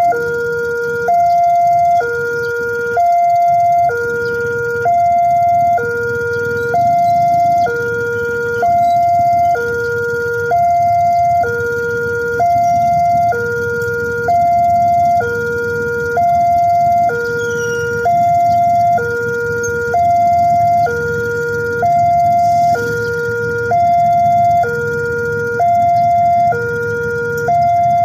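Railway level-crossing warning alarm sounding: an electronic signal alternating steadily between a higher and a lower tone, each held about a second, warning that a train is approaching. A low rumble sits underneath, growing a little after the first few seconds.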